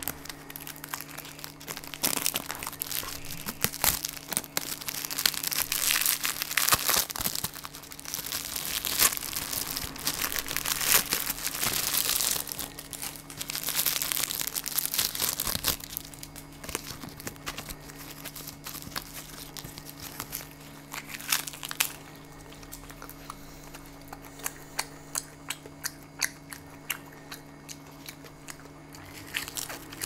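Food packaging crinkling and tearing as it is handled and opened: dense crackling for the first half, then lighter scattered crackles.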